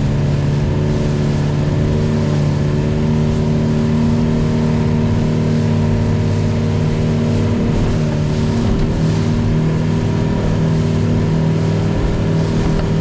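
Small fishing boat's engine running steadily under way, with an even hiss above it; the engine note wavers briefly about eight seconds in.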